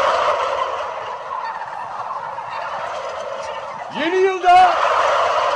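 Turkeys gobbling without a break. One louder gobble about four seconds in opens with a rising note and breaks into a rattling trill.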